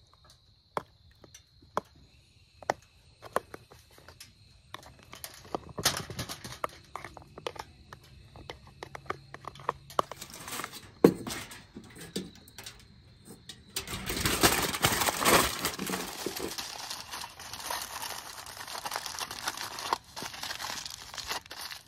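Scattered sharp clicks and knocks of things being handled, then, about fourteen seconds in, several seconds of louder crinkling and rustling that eases off but carries on.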